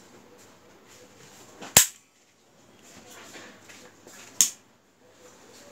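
Two sharp clicks about two and a half seconds apart, the first the louder, as the slide and mechanism of a Desert Eagle-shaped butane jet-flame lighter are worked by hand, with soft handling rustle between them.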